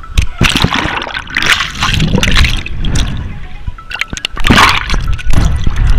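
Pool water splashing and sloshing right at a camera held at the waterline as it dips in and out of the surface, in several loud surges.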